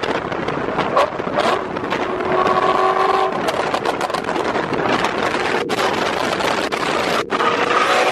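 Ride in a moving Mazda Miata: steady road and wind noise, with a short steady tone of several pitches twice, about two and a half seconds in and again near the end.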